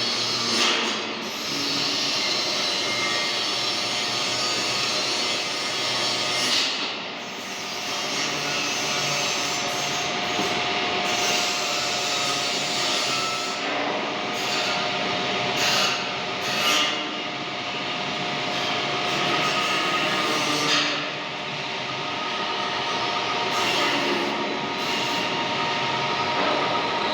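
Metal lathe running, a steady machine noise with a held whine and brief dips in level.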